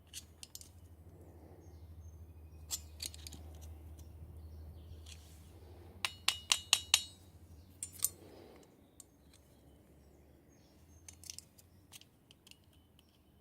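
A screwdriver prying at the clutch collet on a nitro RC engine's crankshaft, making sharp metallic clicks and taps. There is a quick run of about five loud clicks around six seconds in, and a faint low hum underneath that stops about eight seconds in.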